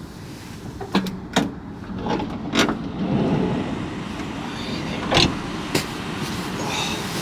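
Several sharp knocks and clunks, five or so spread over a few seconds with the loudest about five seconds in, over a steady background noise.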